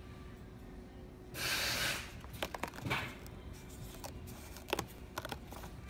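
Excess 3D puff embroidery foam being torn away by hand from around the stitching on a cap: one longer ripping sound about a second and a half in, then short crackling tears.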